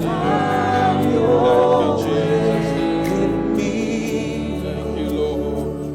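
Gospel worship music: voices singing long, wavering wordless notes over steady held chords.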